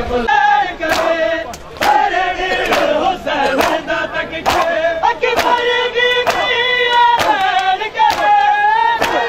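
Crowd of mourners beating their chests with open hands in unison (matam), a sharp slap about once a second, under loud chanting of men's voices.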